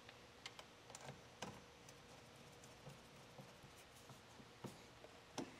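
Near silence broken by a few faint, scattered clicks and ticks of a screwdriver working at a solar inverter's wiring terminals.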